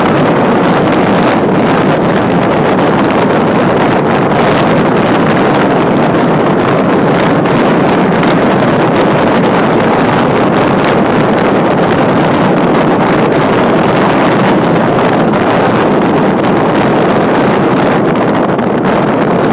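Loud, steady wind noise from air rushing over a microphone mounted on the outside of a moving four-wheel drive, buffeting it constantly.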